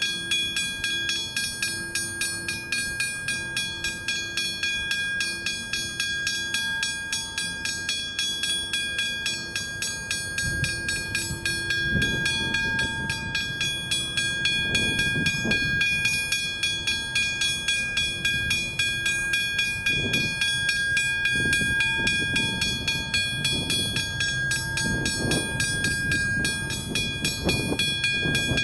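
Westinghouse hybrid level-crossing bell ringing steadily as the crossing warns. The low rumble of an approaching train grows underneath from about ten seconds in.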